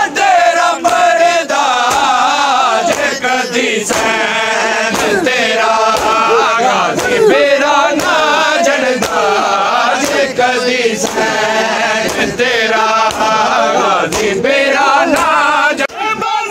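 Crowd of men chanting a nauha, a mourning lament, in unison, with sharp chest-beating slaps (matam) in time, about one a second.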